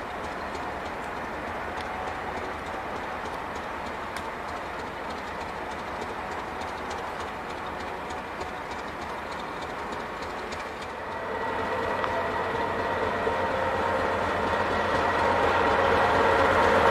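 TGM6A diesel-hydraulic shunting locomotive running toward the listener. Its diesel engine grows louder from about two-thirds of the way in, and a steady high whine joins it as the locomotive comes close.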